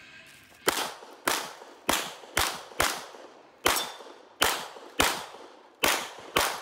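CZ Shadow 2 pistol fired in a rapid string: about ten shots, half a second to a second apart, with a slightly longer pause near the middle. Each shot is sharp with a short echoing tail.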